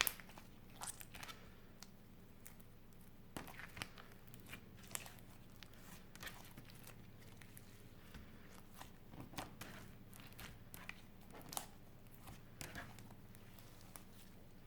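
Clear slime with eyeshadow mixed in, being squished and kneaded by hand, giving faint, irregular crackles and small pops.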